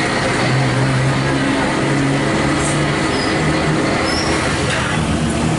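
Street traffic: vehicle engines running close by, a steady low hum under a constant wash of road noise.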